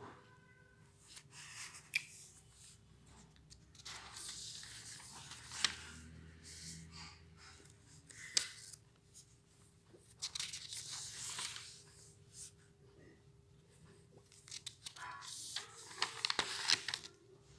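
Paper pages being turned by hand, rustling and crinkling in about four bursts, with a few sharp snaps of paper between them.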